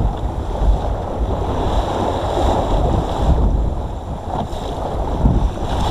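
Wind buffeting the microphone in gusts, over the rush and slosh of choppy water along the hull of a small wooden Mirror sailing dinghy under way.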